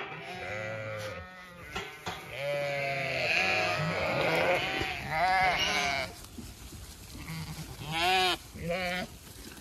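Flock of Zwartbles ewes bleating, many calls overlapping for the first six seconds, then two single bleats near the end.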